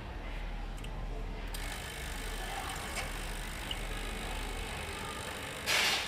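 Espresso machine running during a shot extraction: a steady pump hum, with a hiss coming in about a second and a half in as water is pushed through the group head. A short, loud burst of hiss just before the end.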